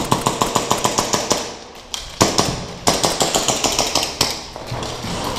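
Airsoft pistol firing in rapid strings, about ten shots a second: a long string of roughly twenty shots over the first two seconds, then shorter bursts of a few shots each.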